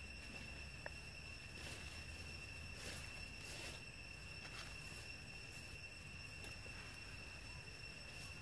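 Steady high-pitched insect drone, with a few faint brief rustles.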